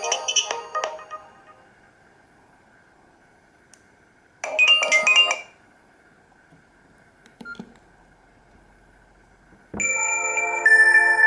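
Nokia E66 stock ringtones: one melody fades out in the first second, a short melodic phrase of about a second plays around the middle, and a new tone of several held notes starts near the end.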